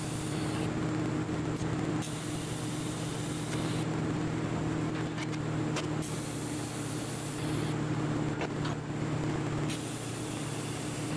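TIG welding a stainless steel V-band flange onto stainless exhaust pipe: the welder gives a steady electrical hum under the hiss of the arc.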